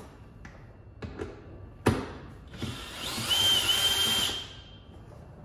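Cordless drill with a 10 mm socket unscrewing a bolt that holds the frunk shell down, running for about a second and a half with a high whine. Before it come a few light clicks and one sharp knock, the loudest sound.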